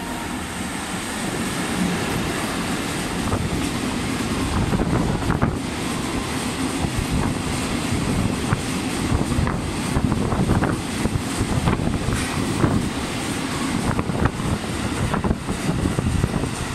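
Limestone freight train of covered hopper wagons, hauled by an EF64 electric locomotive, running through close by: a steady rumble of steel wheels on rail that builds over the first few seconds, with rapid clacks as the wheels cross rail joints.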